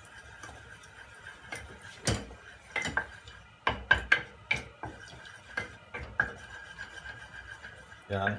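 A spoon stirring and scraping butter as it melts in a small saucepan, with irregular knocks of the spoon against the pan. A faint steady high tone runs underneath.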